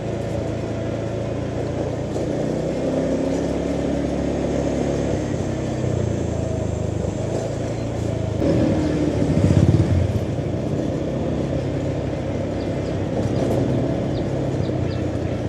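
Motor vehicle engine and road noise, a steady running hum; about eight and a half seconds in it swells louder for a second or so, then settles back.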